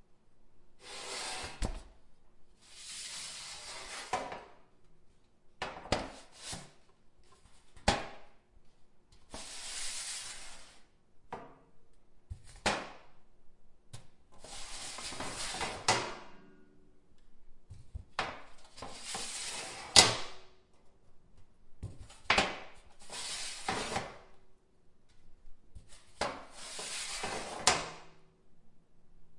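Metal cookie sheet being wiped over and over. Each stroke is a rough rubbing swish lasting a second or two, and they come about every two seconds. Many strokes end in a sharp knock of the pan.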